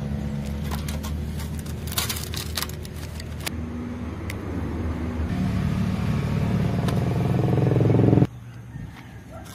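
A motor vehicle engine running close by, growing louder and rising in pitch over several seconds, then cutting off suddenly. A few sharp clicks sound over it.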